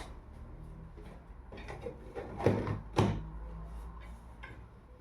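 Knocks and light clatter from handling the hard parts of a 3D-printed coffee organizer and its tin cans, with two louder knocks about two and a half and three seconds in.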